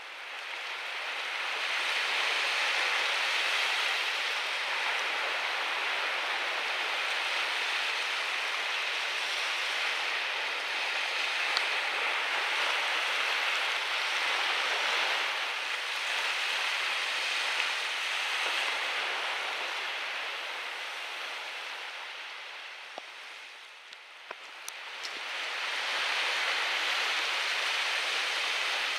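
Steady rushing noise of sea waves and wind, with no engine or voice in it; it fades down briefly about four-fifths of the way through and then comes back.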